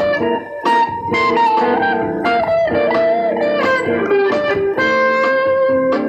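Electric guitar played solo in an improvised lead line: single notes, some bent up and down in pitch, mixed with quickly repeated picked notes.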